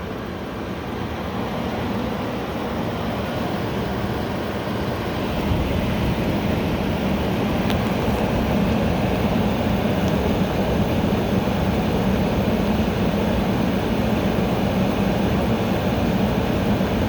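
Air conditioner running: a steady rush of airflow with a low hum underneath, building up over the first few seconds and then holding even.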